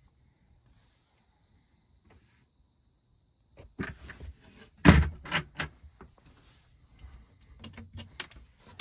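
Near silence for about three and a half seconds, then a run of knocks and clicks from something being handled, the loudest about five seconds in and another near the end.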